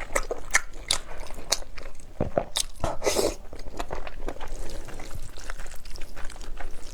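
Close-miked mukbang eating sounds: a run of sharp, crisp bites and chewing, with a longer noisy sound about three seconds in.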